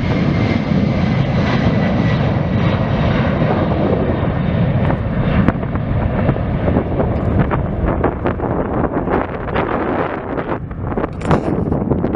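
Airplane engines running loud and steady, with a thin high whine over the first few seconds that fades out. Gusts buffet the microphone in the later part.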